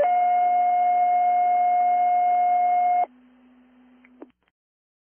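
Two-tone fire dispatch page over a radio: the second, longer tone of the sequence holds steady for about three seconds and stops abruptly. A faint hiss of the open channel follows, then a click as it cuts off.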